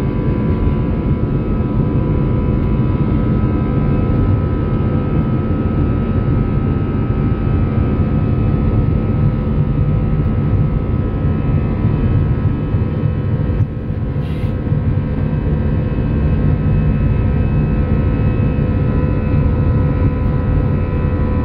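Airbus A320 jet engines heard from inside the passenger cabin as the airliner taxis onto the runway for takeoff: a steady low rumble with several steady whining tones. A brief hiss comes about two-thirds of the way through.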